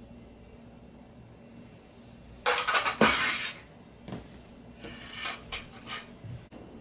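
A metal ladle dropped into a metal frying pan with a loud clatter and ringing about two and a half seconds in, followed by lighter clinks and knocks of the utensils and pan being shifted on the counter.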